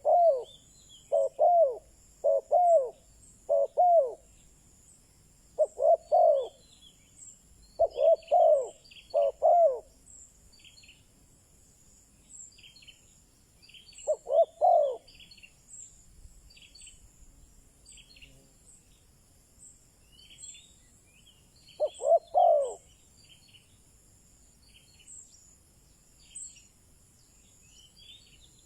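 Spotted dove cooing as a decoy call: a quick run of coos over the first ten seconds, then two more single phrases, about fourteen and twenty-two seconds in. Small birds chirp faintly in between, over a steady high hiss.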